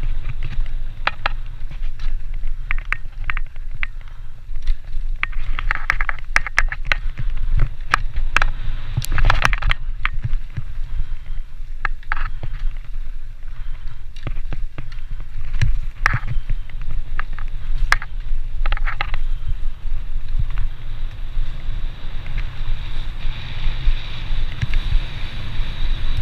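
Wind buffeting the camera microphone on a fast off-road bike ride down a forest trail. Frequent clattering knocks and rattles come from the bike over roots and stones, with several dense spells of rapid clicking.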